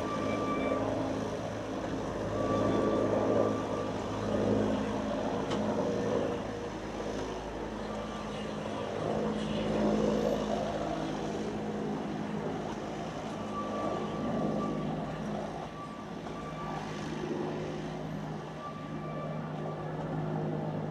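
Narrow-gauge passenger train running along the track, the coaches rumbling steadily on the rails as it draws away, the sound rising and falling gently.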